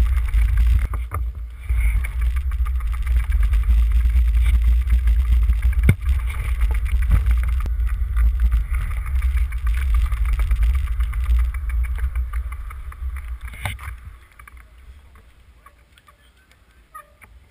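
Heavy, low wind rumble buffeting a moving action camera's microphone, with a few sharp knocks; it dies away about fourteen seconds in as the camera comes to rest.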